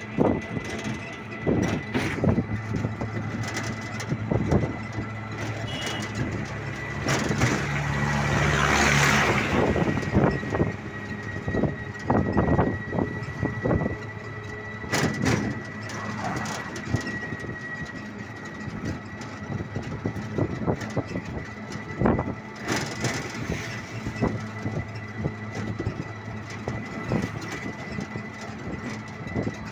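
Road noise from inside an open three-wheeled rickshaw riding over a bridge deck: frequent rattles and knocks of the body and a steady high-pitched whine. About eight seconds in, a passing vehicle's rush swells and fades with a low engine hum.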